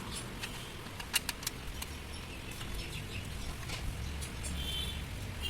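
A few sharp clicks or taps about a second in over a low steady hum, with a brief high chirping near the end.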